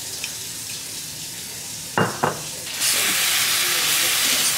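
Minced garlic sizzling as it hits hot oil in a nonstick pan: a faint hiss at first, two quick knocks about two seconds in, then a much louder sizzle that starts just before three seconds in and keeps going as the garlic is stirred.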